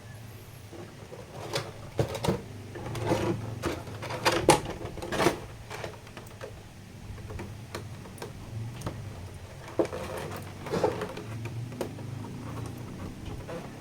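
Hands handling a boxed scale figure's cardboard box and packaging: irregular clicks, taps and rustles, busiest in the first half and again about ten seconds in.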